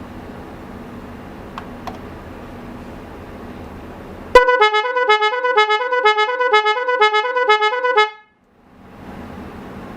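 Snail-type car horn sounding a rapid two-tone warble, two pitches alternating about twice a second, for nearly four seconds before cutting off suddenly. A steady low hum comes before it.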